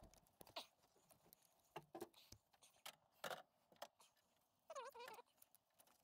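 Faint scattered clicks and metal taps of a spanner working the 13 mm bolts on the timing-chain guide of a Peugeot 2.2 HDI diesel engine as they are loosened. A short wavering squeak comes about five seconds in.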